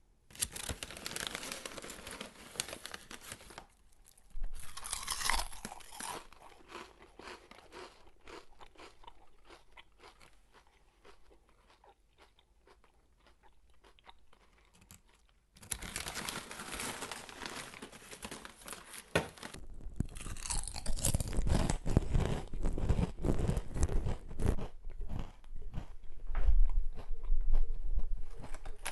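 A person crunching and chewing chips close to the microphone, in bursts of crisp crackling with a quieter stretch in the middle. The crunching is loudest and heaviest in the last third.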